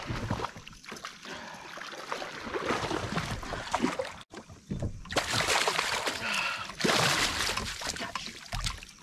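Water splashing and sloshing beside a kayak as a hooked fish thrashes at the surface and is brought to the net, with loud bursts of splashing in the second half.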